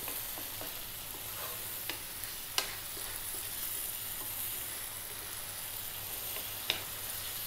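Chopped tomatoes, onion and garlic sizzling gently in a frying pan as they cook down, stirred with a wooden spatula. The spatula knocks sharply against the pan twice, about two and a half seconds in and again near the end.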